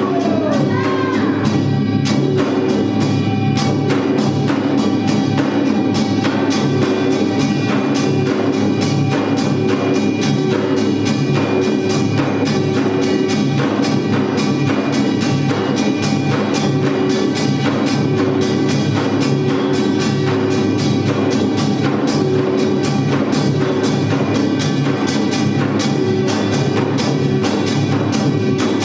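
Samul nori played by a Korean percussion ensemble: kkwaenggwari small hand gongs clanging over janggu hourglass drums and buk barrel drums, beating a loud, dense, continuous rhythm.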